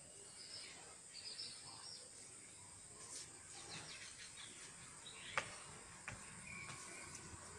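Faint outdoor ambience: small birds chirping in short high calls, mostly in the first couple of seconds, over a steady high-pitched drone. Two sharp clicks come about five and six seconds in.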